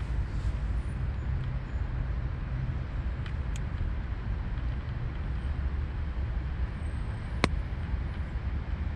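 Steady low background rumble with a few faint clicks, and one sharp click about seven and a half seconds in.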